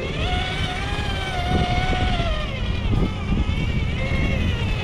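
Electric motor and geared drivetrain of a Traxxas TRX-4 RC rock crawler whining as it climbs. The whine holds for about two and a half seconds, bending slightly in pitch with the throttle, then fades and comes back briefly near the end, over a low rumble.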